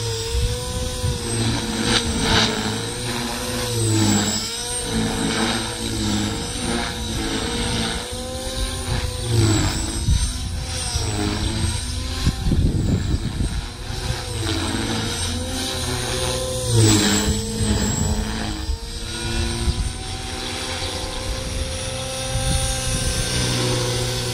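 HK450 Pro electric 450-size RC helicopter in flight, its motor and rotor whine swooping up and down in pitch again and again as it manoeuvres. Wind buffets the microphone.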